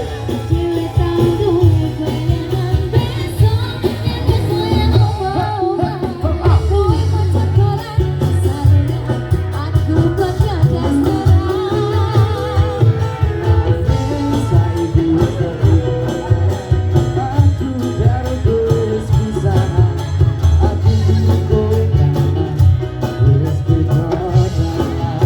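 Background song with a singing voice over guitar and a steady bass line.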